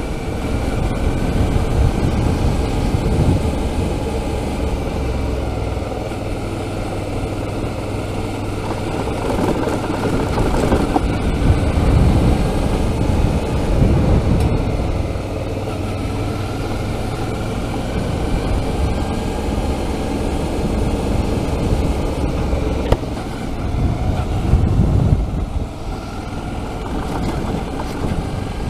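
Suzuki V-Strom 650's V-twin engine running under way on a gravel road, its pitch rising and falling several times as the throttle is opened and closed.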